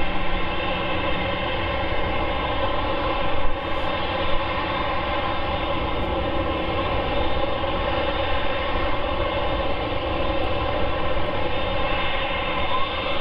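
Boeing 747-8F's four GE GEnx turbofans running steadily, a dense whine of many fixed tones over a low rumble.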